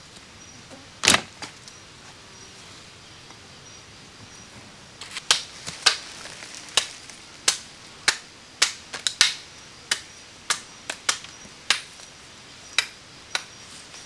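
Sharp, hard knocks of repeated striking, as with a hand tool: one about a second in, then a run of about fifteen at an uneven pace of roughly two a second from about five seconds in.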